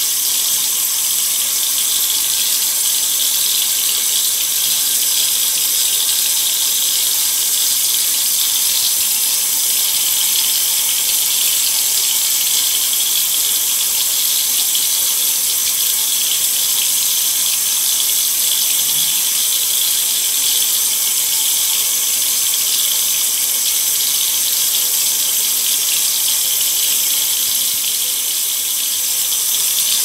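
Bathroom sink faucet running steadily, a thin stream of water splashing onto the drain.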